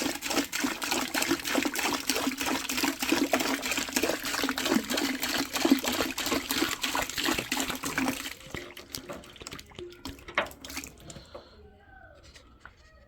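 Water gushing and splashing out of a gas water heater tank's open relief-valve port into a bucket and towels. About eight seconds in the flow stops, leaving scattered drips.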